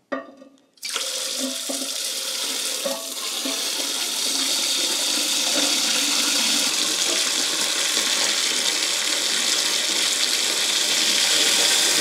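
Water from a garden hose pouring into an empty ceramic toilet tank, filling it up to the line. The flow starts suddenly about a second in and runs steadily, growing a little louder as the tank fills.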